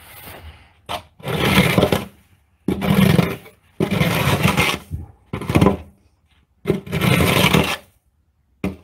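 Snow shovel blade scraping along the pavement as it is pushed through packed snow, in about six strokes of roughly a second each with short pauses between.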